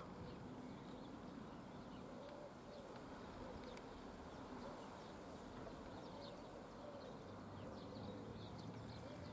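Faint outdoor birdsong: pigeons cooing again and again, with short high chirps from small birds. A faint low hum runs underneath and grows a little near the end.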